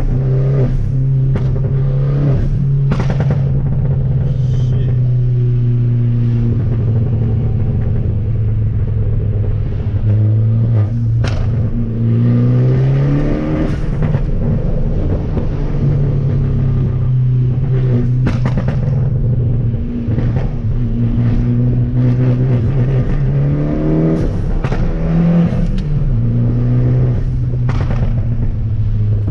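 Fiat Abarth 500's 1.4-litre turbocharged four-cylinder engine running on the road. Its note rises twice under acceleration, about twelve and twenty-four seconds in, and drops back after each rise, with a few brief knocks.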